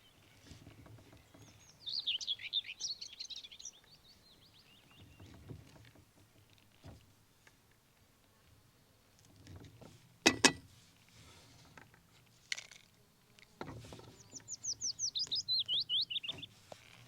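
A songbird singing two phrases, each a quick run of high falling notes, one early and one near the end. About halfway through there are two sharp knocks close together, the loudest sounds, with a few fainter clicks after them.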